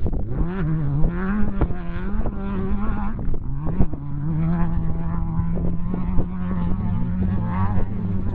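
Off-road race car's engine at speed, its revs rising and falling with the throttle for the first few seconds, then held steady and high. A few sharp knocks come through over the engine.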